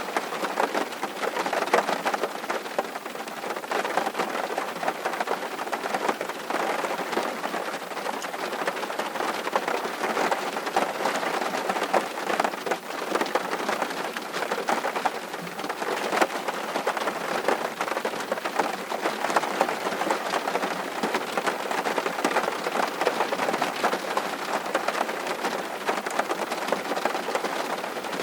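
Steady rain falling, a dense even patter of many individual drops with no letup.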